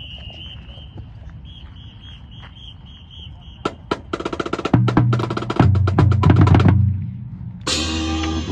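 A marching band's drumline opens: two sharp stick clicks, then a quick roll and about two seconds of rhythmic snare and bass-drum strokes. The full band comes in with sustained pitched music near the end.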